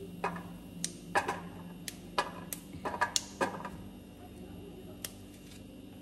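Kitchen clatter: a run of light, irregular clicks and knocks of utensils and cookware, thickest in the first three seconds with one more near five seconds, over a steady low hum.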